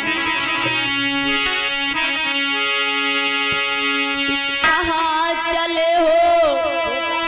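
Devotional song accompaniment: an instrument plays long held notes. After a sharp hit about four and a half seconds in, a woman's singing voice with a wavering pitch comes in.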